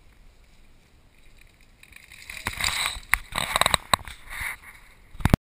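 Downhill mountain bike passing close by, its tyres crunching and skidding through dry leaves and over rocks, with rattling clicks from the bike. Loudest for about two seconds in the middle, then fading as it rides away.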